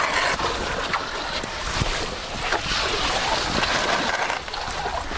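Water churning and splashing as elephants go down a riverbank into a river.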